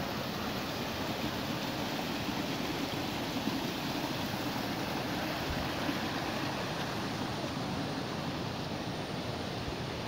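Steady rushing of a small stream flowing over little cascades, an even noise without breaks.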